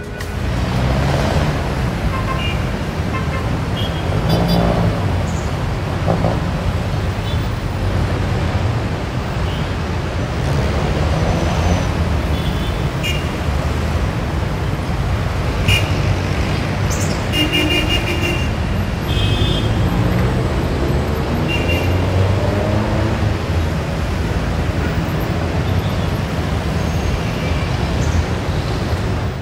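Busy city road traffic: a steady rumble of car, van and motorcycle engines and tyres, with several short vehicle horn toots scattered throughout.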